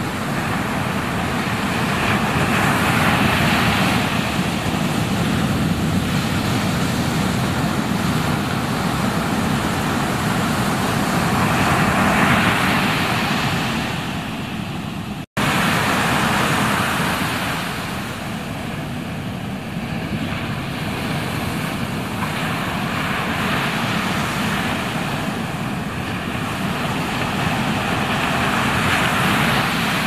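Ocean surf: a steady rush of breaking waves that swells louder about three seconds in and again around twelve seconds. The sound cuts out for an instant about halfway through.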